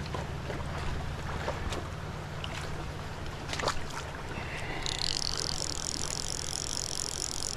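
Stream water running with a steady low rumble and scattered small clicks. About five seconds in, a steady high-pitched buzz starts and holds.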